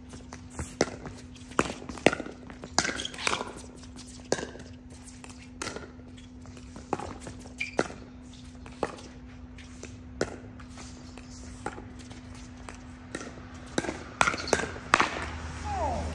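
Pickleball rally: paddles striking the hard plastic ball in a long run of sharp hits, roughly one or two a second and sometimes closer together, over a steady low hum.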